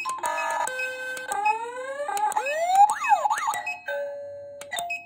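HTZSafe wireless motion-alert receiver playing one preset alert tone after another as its button steps through them: a chime-like chord, then rising sweeps, a short siren-like up-and-down warble near the middle, and steady beeps near the end.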